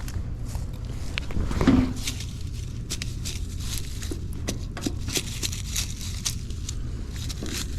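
Scattered light clicks and taps of hands and tools working on metal parts, with a louder muffled knock about two seconds in, over a steady low hum.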